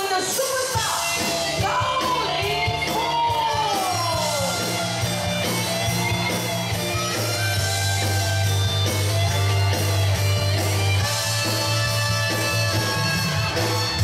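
Live band playing an upbeat rock-style song intro over a PA system, with electric guitar and a heavy bass line that comes in about four seconds in.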